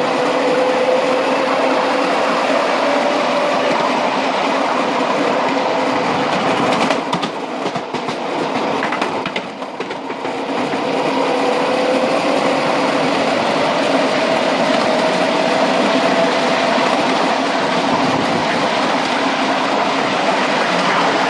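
Electric traction motor of a 5-inch-gauge battery-electric model Class 03 locomotive whining over the noise of its wheels running on the rails. The whine climbs slowly in pitch as it gathers speed, drops away with the running going quieter for a few seconds about seven seconds in, then returns and climbs again.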